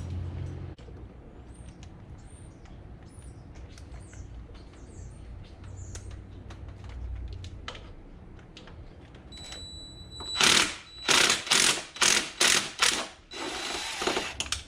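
Ratchet wrench at work: faint scattered clicks and knocks, then near the end a loud run of about seven quick ratcheting strokes, roughly two a second, ending in a longer rasp.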